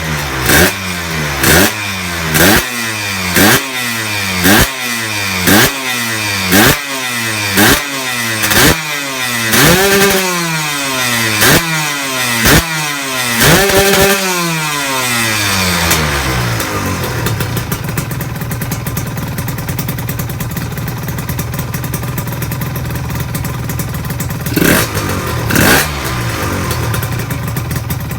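Honda LS125 two-stroke single-cylinder engine, freshly rebuilt with a new connecting rod and a 0.50 oversize genuine piston, blipped hard about once a second, each rev shooting up and falling back. About halfway through it settles into a steady idle, then is blipped twice more near the end.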